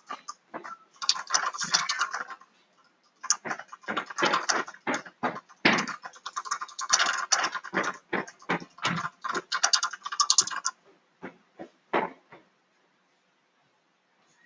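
Handling noise: a run of irregular clicks, taps and rustles, with fabric brushing close to the microphone. It dies away about two seconds before the end.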